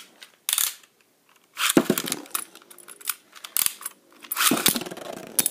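Beyblade spinning tops launched into a plastic stadium bowl, then skittering and scraping around it, with sharp clacks where they hit the bowl and each other.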